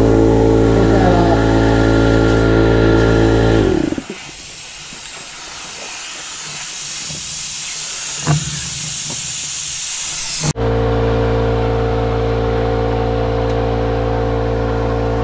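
Air compressor motor running with a steady hum, cutting out about four seconds in, followed by a steady hiss of compressed air that slowly grows louder while a flat trailer tyre is being inflated. A single click comes about eight seconds in, and the motor kicks back on abruptly at about ten and a half seconds.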